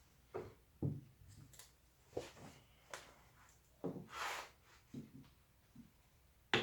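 Carving tool working a piece of wood: scattered soft knocks and short scrapes, with one longer hissing cut about four seconds in.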